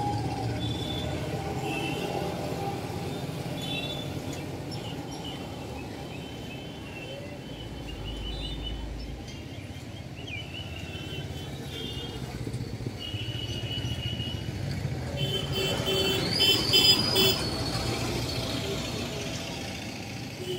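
Outdoor background noise: a steady low rumble with faint indistinct voices, and short high-pitched tones coming and going. The tones are loudest in a brief cluster about three-quarters of the way through.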